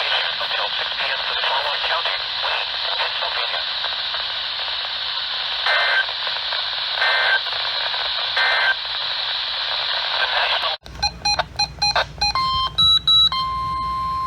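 Radio static hiss with three short data bursts a little over a second apart, the pattern of EAS/SAME end-of-message tones heard over a weak receiver. About three-quarters of the way in the static cuts off and a quick run of electronic clicks and beeps follows, settling into steady beep tones.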